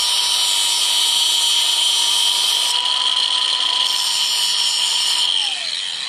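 DeWalt angle grinder running at full speed with a steady high whine and hiss, grinding down the top of a deadbolt sleeve. Near the end it is switched off and the whine falls as the disc spins down.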